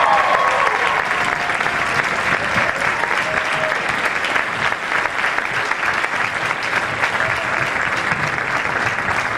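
Audience applauding steadily after a stage musical number, with a few shouts and cheers over the clapping near the start.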